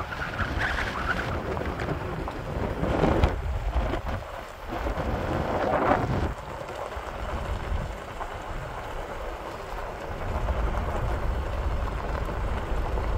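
A 4x4 rolling down a steep dirt road with four-wheel drive engaged: steady low rumble with tyres crackling over loose gravel, swelling louder about three and six seconds in.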